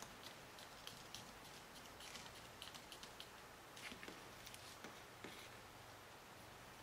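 Faint, scattered light clicks and ticks of a small screwdriver and screws as the back cover of an iPhone 4S is screwed down; they stop about five seconds in.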